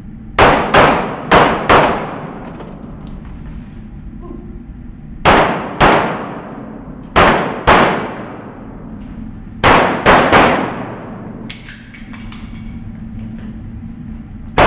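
Pistol shots fired rapidly on an indoor range, each ringing with a long echo off the walls: four quick shots, then two pairs and a string of three separated by pauses, and one more shot at the very end.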